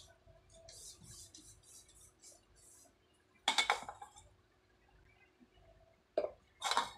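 Kitchen containers and utensils being handled: a sharp clink about three and a half seconds in, then two short knocks near the end as a plastic spice container is set down on the counter.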